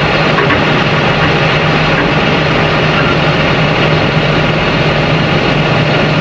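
Tractor engine running steadily with a constant low hum, driving a rear-discharge spreader as it throws out bedding straw.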